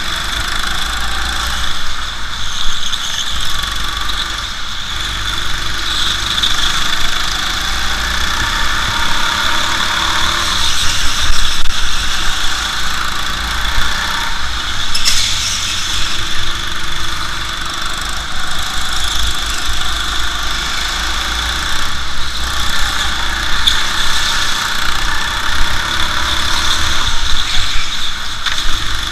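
Go-kart engine running continuously as the kart is driven at speed around the track, heard close up from on board, with a low wind rumble on the microphone and a steady high-pitched whine over the engine noise.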